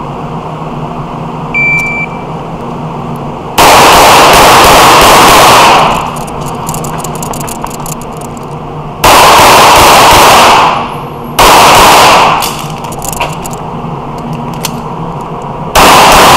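A shot timer's short start beep, then four strings of rapid pistol fire in an indoor range, the shots running together into loud blocks of one to two and a half seconds, with pauses between the strings.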